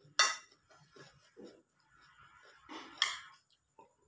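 A person eating from a bowl close to the microphone: soft chewing and mouth clicks, with two louder, sharp, hissy eating sounds, one just after the start and one about three seconds in.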